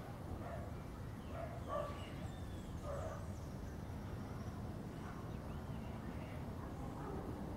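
A dog barking in the distance, a few short barks at irregular intervals, over a steady low rumble.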